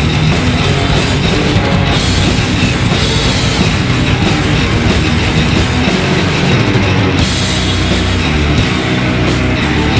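A heavy metal band playing live: distorted electric guitars, bass and a drum kit, loud and without a break.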